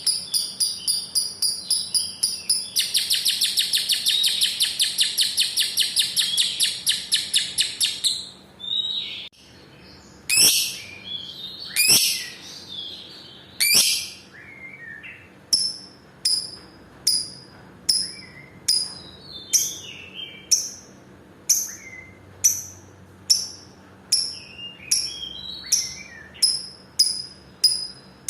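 A lovebird giving its long, fast chattering trill (ngekek). The trill breaks off about eight seconds in, and the bird goes on with single sharp chirps that start well spaced and quicken to more than one a second toward the end.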